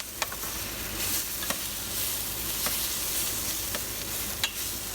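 Chopped onions and green bell peppers sizzling in hot oil in a frying pan, with a few sharp clicks of a utensil stirring them against the pan. The vegetables are browning to a char.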